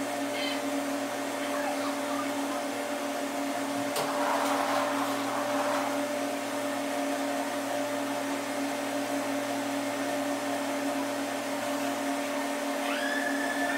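Steady motor hum with a rushing noise, from a stainless-steel whirlpool tub's turbine running. A sharp click about four seconds in, followed briefly by a louder rush.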